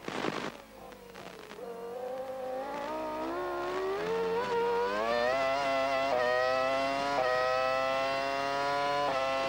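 McLaren-Mercedes 3.0-litre V10 Formula One engine, heard from the onboard camera. It runs low through a slow corner, then the revs climb steadily as the car accelerates onto the straight, with quick upshifts breaking the rising note several times.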